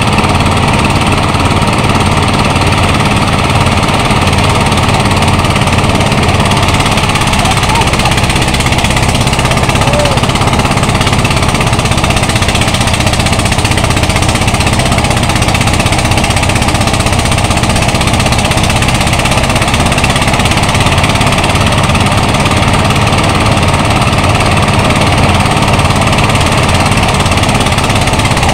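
Portable engine-driven rice thresher running loud and steady while bundles of rice stalks are fed into it and threshed.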